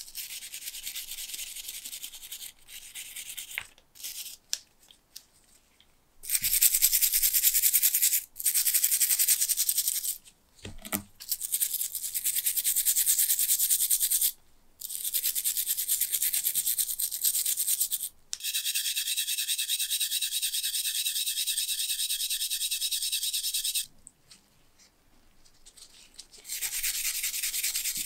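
Stiff brush scrubbing rusty antique key and lock parts in a tub of liquid rust remover: wet bristles rasping on metal. It comes in spells of several seconds with short pauses, after a few quiet ticks and handling sounds at the start.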